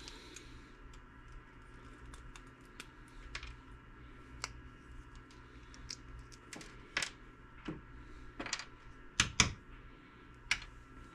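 Small plastic parts being pried and picked apart with pliers: scattered light clicks and ticks, with two sharper clicks close together about nine seconds in.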